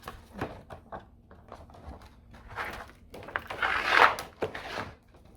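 A plastic case being handled and slid off a large photobook album: a run of small clicks and rustles, then a longer, louder scraping rustle in the second half.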